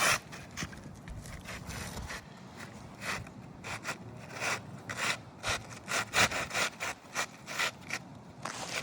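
Repeated scraping and rubbing strokes on 3-tab asphalt roof shingles as a creased shingle is worked on for replacement, coming about two a second in the second half.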